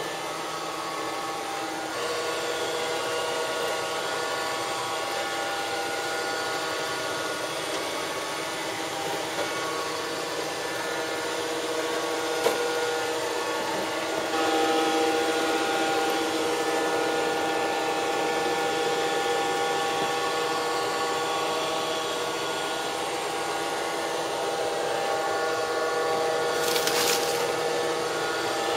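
Robot vacuum cleaner running, its motor and brushes giving a steady whine of several held tones over a hiss. A single sharp click comes about twelve seconds in, and a short high hiss near the end.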